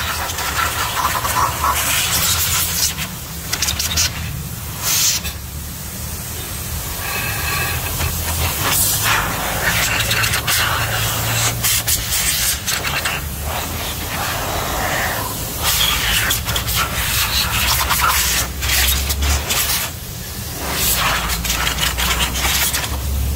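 Hose spraying over the cleaned throttle body and EGR valve parts, a hissing spray that starts and stops several times.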